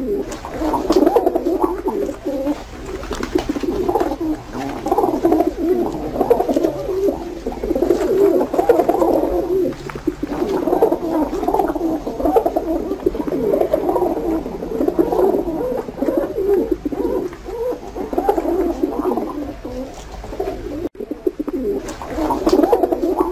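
Domestic pigeons cooing steadily, with many coos overlapping.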